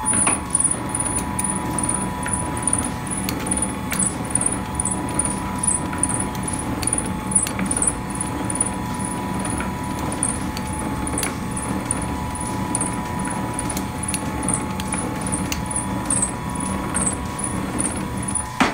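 Soba noodle-making machine running: a steady hum under a regular ratcheting click of its mechanism, about two to three clicks a second.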